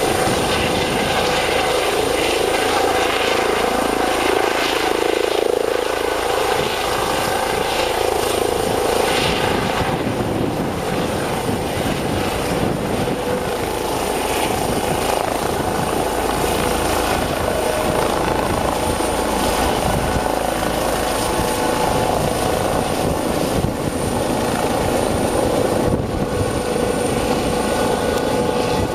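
Eurocopter EC135T twin-turbine helicopter lifting off, hovering low and then climbing away. Its main rotor and Fenestron tail rotor run steadily and loudly, over a steady high turbine whine.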